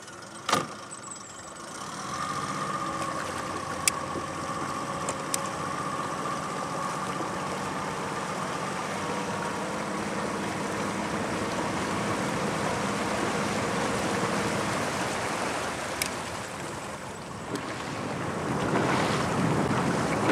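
Boat motor running steadily with a fixed pitch after a couple of knocks at the start. A noisier wash of water and wind rises near the end.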